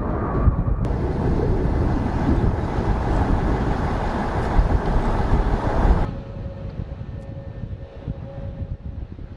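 Jet noise of the MC-21-300 airliner's two turbofan engines at takeoff power as it climbs away. About six seconds in it cuts abruptly to a quieter steady drone with a faint hum.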